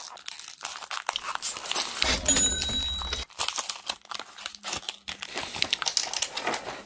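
Foil wrapper of a Pokémon trading-card booster pack crinkling and tearing as it is pulled open by hand, in irregular crackles.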